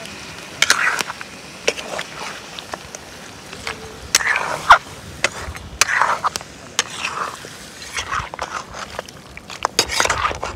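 Metal spoon and slotted spatula clinking and scraping against a steel wok while stirring raw pork pieces, with irregular sharp clinks between short scraping strokes.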